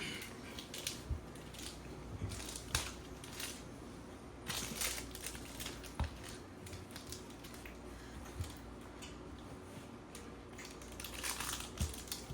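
Intermittent crinkling and rustling, in several short bursts with pauses between them, with a few soft knocks.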